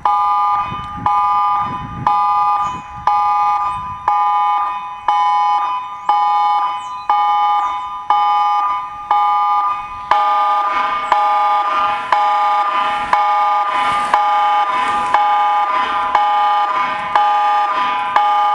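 New Zealand Emergency Mobile Alert tone: a chord of steady electronic tones pulsing about once a second. About ten seconds in, a lower tone joins and the sound becomes fuller.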